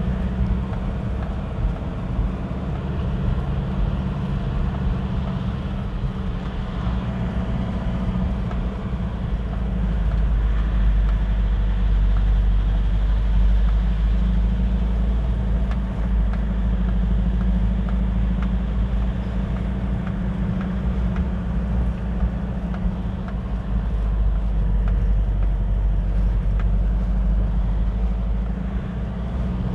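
Car engine running steadily with tyre and road noise, heard from inside the cabin on a winding uphill road; it grows somewhat louder about a third of the way in.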